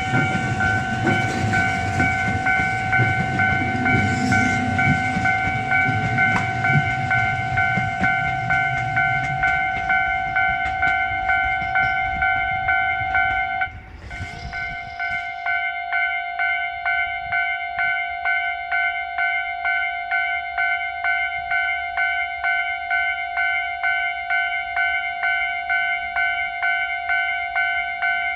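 Japanese level-crossing alarm ringing in a fast, even ding-ding rhythm, with the rumble of a departing Tobu Isesaki Line train fading out over the first ten seconds or so. The alarm cuts out briefly about fourteen seconds in, then starts again, keeping the crossing closed.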